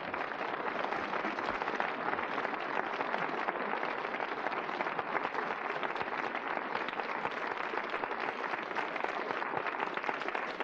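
Audience applause, a dense and steady clapping.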